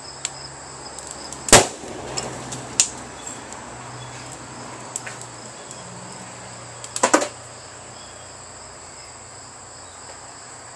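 Wood fire in a steel burn drum crackling, with a sharp loud pop about a second and a half in, a smaller one near three seconds and a quick cluster of cracks about seven seconds in. Insects chirr steadily in the background.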